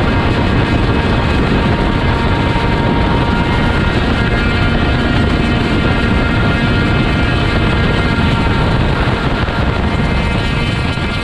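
A steady engine-like drone at a constant pitch, beginning to fade near the end.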